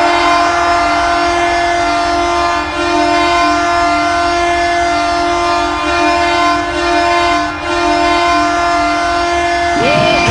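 Ottawa Senators arena goal horn: a long, loud, steady multi-tone air-horn blast like a train horn, dipping briefly twice. Near the end a swooping tone cuts in as the horn gives way.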